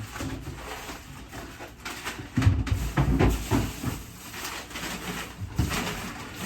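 Rustling and irregular knocking of groceries being unpacked and handled, with a cluster of knocks and thumps a couple of seconds in.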